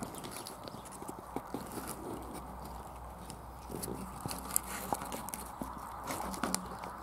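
Camera handling noise: scattered small clicks and crackles over a steady low hum and hiss.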